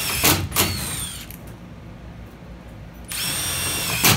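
Cordless drill driving a self-tapping screw up into an aluminum patio cover panel. Its high motor whine runs for about a second, with two sharp cracks and then a falling pitch as it spins down. It starts again about three seconds in with two more cracks near the end.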